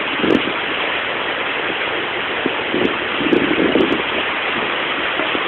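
Heavy monsoon rain pouring down, a dense steady hiss.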